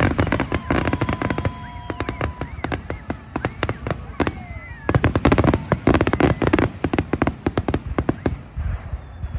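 Fireworks going off in rapid strings of sharp cracks and bangs, heaviest about five to seven seconds in, with voices in the background.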